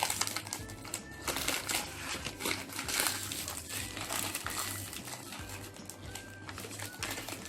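Plastic and paper toy packaging crinkling and crumpling irregularly as it is unwrapped by hand, with background music.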